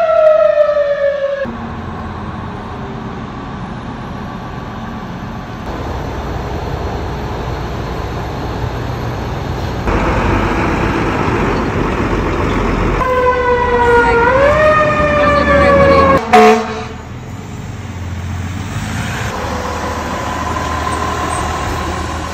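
Fire truck sirens and engine noise over several cuts: a siren wail falling in pitch and cutting off about a second in, then the rumble of a fire truck engine pulling out. A second siren wail rises and falls for about three seconds, ends in a sudden cut with a click, and engine rumble follows.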